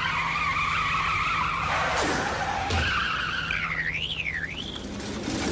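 Cartoon pickup truck engine running with a sustained high screech like skidding tyres, then a high wavering whine that swoops up and down near the end.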